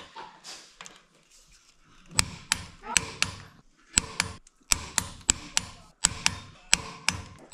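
Ratchet head of a click-type torque wrench clicking sharply as it is swung back and forth on a cylinder head bolt, in quick groups of clicks starting about two seconds in. The head bolts of an International Harvester C123 engine are being drawn down in stages, here to 60 ft-lb.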